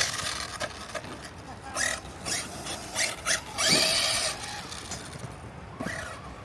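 Electric RC monster truck (Traxxas Maxx-series) driven in short throttle bursts: brushless motor whine rising with each burst, with tyres hissing and scrubbing.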